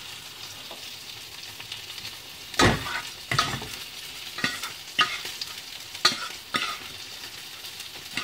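Salmon fillet frying skin-side down in hot olive oil, a steady sizzle. Over it come a series of sharp knocks and thuds as a stainless steel saucepan of potato salad is lifted and tossed, the loudest about two and a half seconds in.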